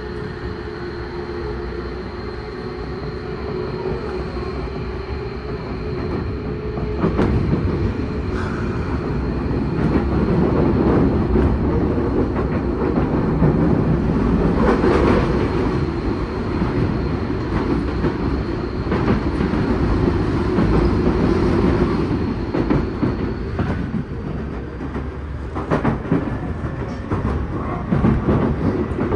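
Tokyu new 5000 series electric train with a Hitachi IGBT-VVVF inverter running at speed, heard from inside the passenger car. A steady hum from the motors and inverter gives way to louder wheel-on-rail noise from about seven seconds in, with clicks as the wheels cross rail joints.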